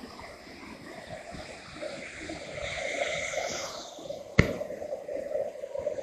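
Waterfall pouring into its pool, a steady rush of water, with one sharp click about four seconds in.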